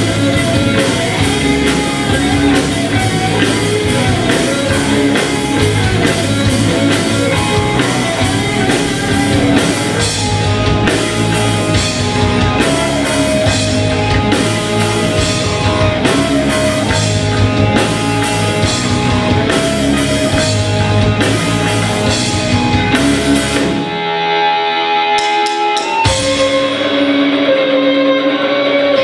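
Student rock band playing live: electric guitars and a drum kit. About 24 seconds in, the drums and low end drop out for a couple of seconds, leaving the guitar ringing, then the band comes back in, at first without cymbals.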